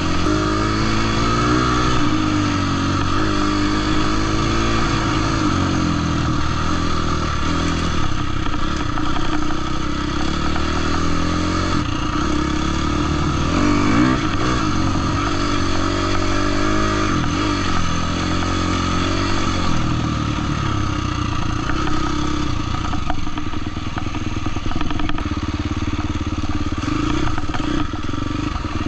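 Husqvarna dirt bike engine heard from on the bike while riding a trail, revving up and down again and again with the throttle and gear changes.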